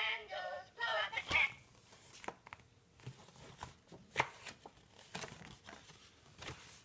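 A baby babbles briefly near the start, then a paper greeting card is grabbed and handled: scattered sharp clicks and rustles.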